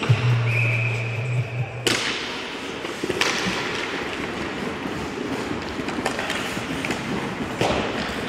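Ice hockey play in a rink. A steady hum cuts off sharply about two seconds in, and then come the noise of play on the ice and several sharp knocks of sticks and puck.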